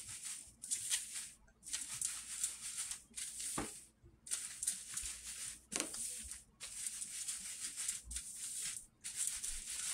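Fresh rice flour being sifted by hand through a metal-rimmed mesh sieve, rubbed and shaken so that only the fine flour passes and the coarse grains stay behind. The sound is a faint, hissy rustle of flour against the mesh, in rhythmic strokes a little more than one a second.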